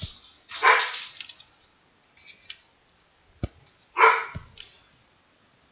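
A dog barking, two barks about three seconds apart.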